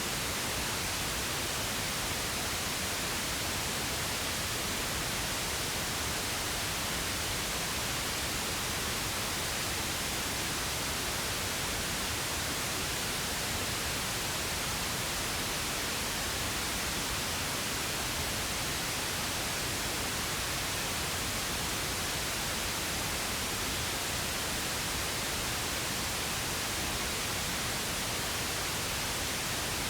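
Steady pink noise: an even, unchanging hiss spread across all pitches, with no events or variation.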